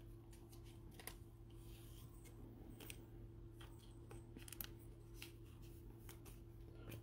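Near silence with faint, scattered small clicks and rustles of gloved hands handling a trading card, over a steady low hum.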